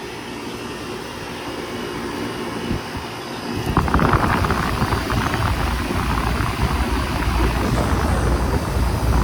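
AirEase Concept 10 central air condensing unit running, its condenser fan and Copeland reciprocating compressor making a steady hum. About three and a half seconds in it gets much louder, with a rough rushing-air rumble.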